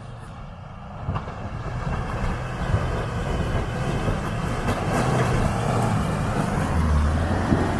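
Mitsubishi L200 pickup's engine labouring up a steep rutted dirt climb, growing steadily louder as the truck comes closer, with a few sharp clicks and knocks.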